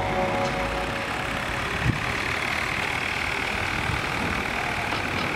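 Six-wheeled electric RC car running along asphalt, its motor whirring steadily and its tyres rolling as it tows a loaded baby stroller by a rod, with one knock about two seconds in.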